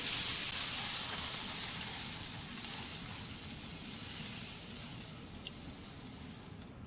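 Meat sizzling on a yakiniku grill, a steady hiss that is loudest at the start and slowly dies down, with one light click late on.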